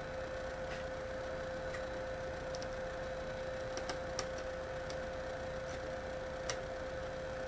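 Sparse, irregular light clicks of a screwdriver working a small screw into a plastic box, the screw cutting its own threads. The clicks sound over a steady background hum, with the sharpest ones about four and six and a half seconds in.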